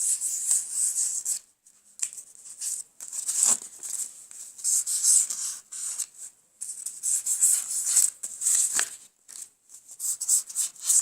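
Felt-tip marker colouring in paper: quick scratchy back-and-forth strokes in runs, broken by brief pauses.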